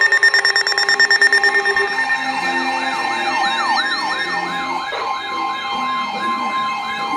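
Alert alarm tones pulsing rapidly. About two seconds in, a siren starts, sweeping quickly up and down about three times a second over steady held tones.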